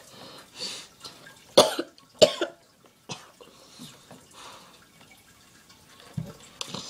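A boy coughing twice in quick succession, sharp and loud, about one and a half and two seconds in, with fainter short sounds before and after.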